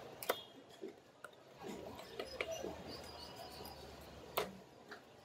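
Heavy fish-cutting knife chopping through a pangas fish into a wooden log chopping block: a few sharp chops, the loudest just after the start and again about four seconds in.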